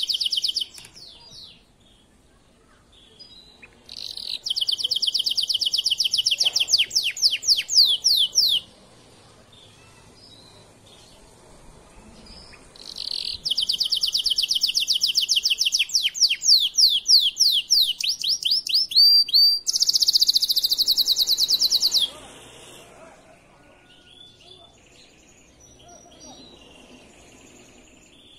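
Male canary in breeding condition singing two long song phrases of fast trills and rolls, separated by a pause of a few seconds. The second phrase runs about nine seconds and ends in a higher, faster run.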